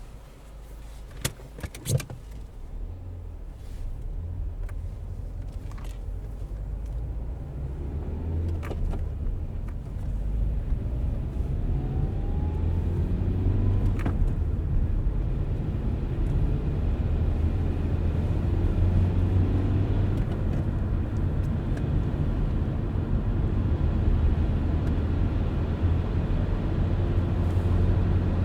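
A car driving, its engine and road rumble growing louder over the first ten seconds or so, then holding steady. A few sharp clicks sound in the first two seconds.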